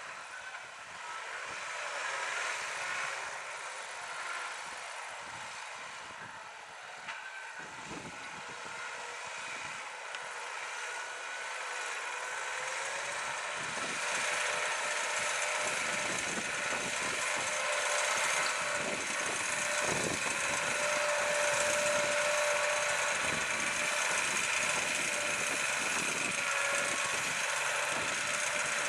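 Case IH Puma 200 CVX tractor's six-cylinder diesel engine running under load while pulling a deep plough. It grows louder over the first half, and a steady whine comes in about halfway.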